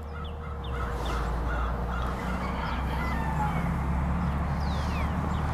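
Farmyard fowl calling in a rapid repeated series, about three calls a second, with a few high, falling bird chirps near the end.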